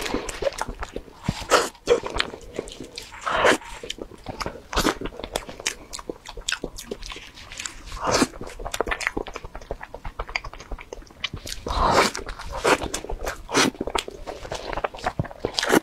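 Close-miked eating: bites and chewing with many wet mouth clicks and lip smacks, and louder bites every few seconds.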